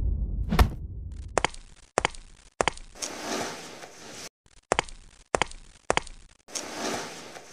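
Cartoon fight sound effects: a deep boom dying away at the start, then a string of sharp knocks and clicks, some in quick pairs, with two longer whooshing swells between them.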